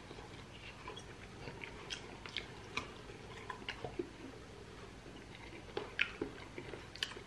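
A person biting meat off a pork rib held in the hands and chewing it, with scattered small wet smacks and clicks of the mouth.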